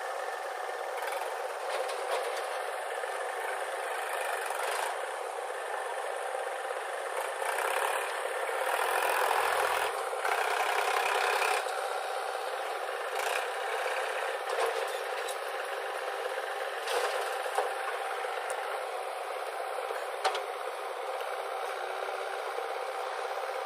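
JCB backhoe loader and farm tractor diesel engines running while the backhoe works soil into a tractor trolley, with rattling, scraping and clattering of earth and stones; louder for a few seconds near the middle, with a few sharp knocks. The sound is thin, with the low engine rumble cut off.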